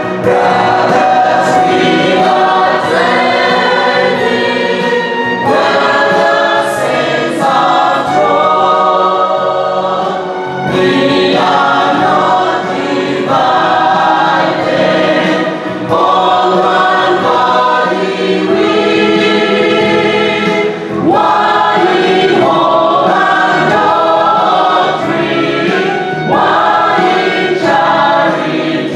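A choir singing a hymn in full voice, phrase after phrase with brief breaks every few seconds.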